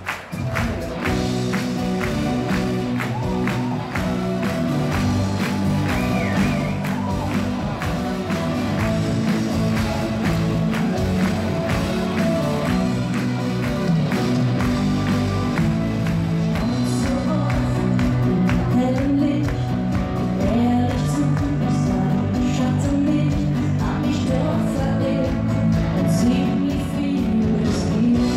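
Live Schlager pop music with a steady beat and a singing voice, played by a band over a concert sound system.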